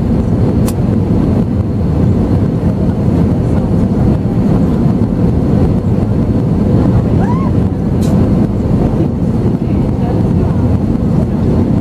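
Steady cabin roar of an Airbus A320neo in flight, engine and airflow noise heard from inside the cabin over the wing, with a faint steady hum running under it.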